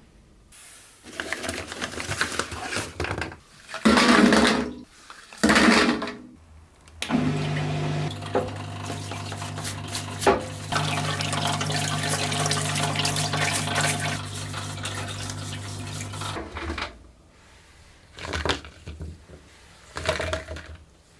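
Water splashing and running as rusty toy-truck parts are washed. About seven seconds in, an electric machine starts and hums steadily with water noise for about nine seconds, then stops.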